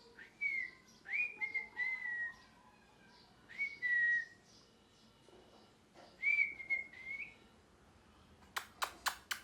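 Ringneck parrot giving short, clear whistles in several bursts; each note rises sharply and then holds or falls slightly. Near the end come four quick, sharp clicks.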